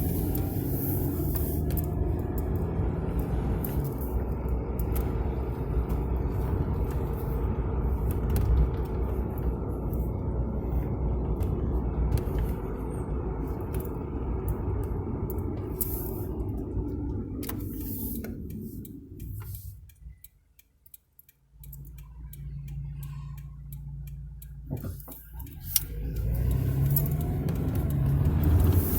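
A Scion FR-S being driven: its flat-four engine runs under steady road noise. About two-thirds of the way through, the sound falls away to near silence. Then the engine comes back and picks up again near the end.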